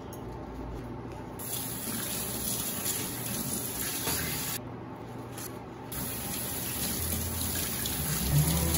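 Kitchen tap running into a stainless steel sink, the stream splashing off gas stove grates being rinsed under it. The splashing eases briefly about halfway through, then picks up again.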